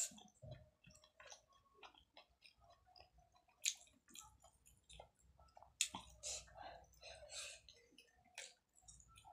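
Faint close-up eating sounds of a person chewing a mouthful of rice and mutton curry eaten by hand: soft wet clicks and lip smacks, with a few louder smacks around the middle.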